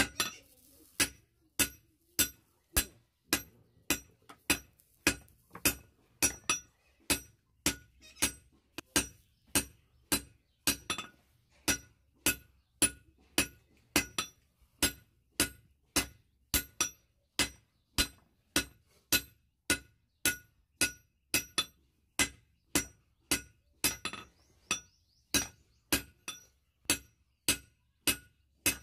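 Hand hammer striking a red-hot steel bar on an anvil, in a steady rhythm of about two ringing metallic blows a second.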